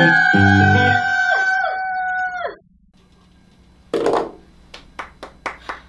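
Several women's voices holding one long high shout together, the fan-chant cheer at the end of the song. The music under them stops about a second in, and the voices drop in pitch and cut out one after another by about two and a half seconds in. After a short pause comes a brief rustle, then a run of light clicks.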